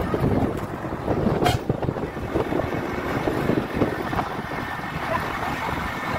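A bus on the move: engine and road noise heard from a passenger seat by the window, with wind on the microphone and irregular low knocks and rumble.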